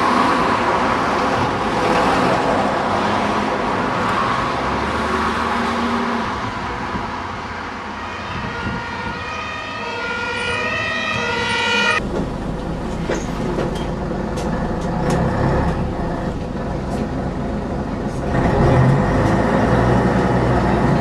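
Scania double-decker bus engine running as the bus approaches, with a whine that rises in steps. After an abrupt change about twelve seconds in, the same bus's engine is heard from inside the moving bus, with rattles from the body and a louder engine near the end.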